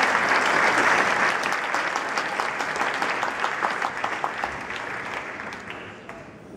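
Audience applauding, the clapping loudest at first and fading away gradually toward the end.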